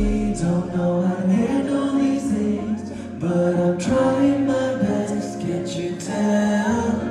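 Live band music with a singer holding and gliding between sustained notes.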